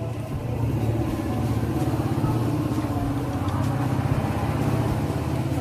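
A motor engine running steadily with a low hum, swelling in loudness about a second in and easing off near the end.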